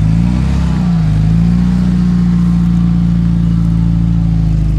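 UAZ Patriot's engine held at high revs while the vehicle is stuck, its wheels spinning in soft, wet salt-marsh mud. The revs dip and climb back about a second in, then hold steady.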